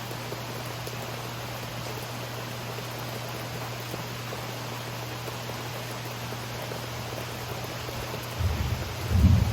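Steady rain falling, an even hiss, with a brief low rumble in two surges near the end.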